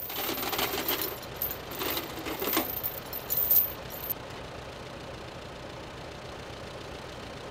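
Irregular metallic clinking and jangling for about four seconds, then only a steady low hum.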